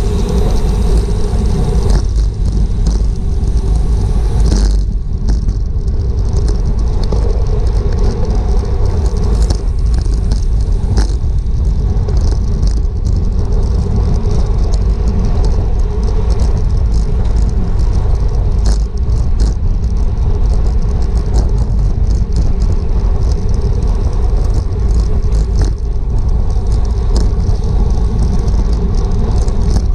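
Wind buffeting a bicycle-mounted GoPro's microphone at racing speed: a loud, steady low rumble, with scattered clicks and rattles from the bike running through it.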